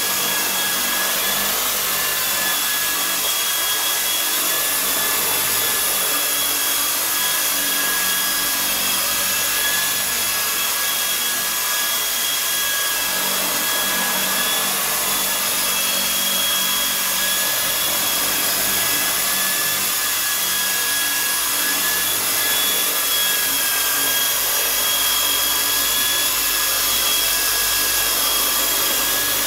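Small electric RC helicopter (E-sky Honey Bee V2 with wooden main blades) in flight: its electric motor whines steadily and the rotor buzzes, the whine wavering slightly in pitch as the throttle and blades work.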